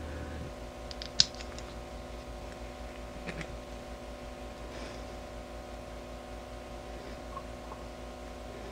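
A few faint, short clicks and taps of small lure parts and a wire holder being handled, the sharpest about a second in, over a steady low hum.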